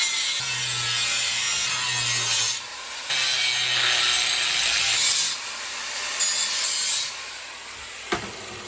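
Power tool working on steel in bursts of about two seconds, with a hiss under a low hum. A single sharp knock comes near the end.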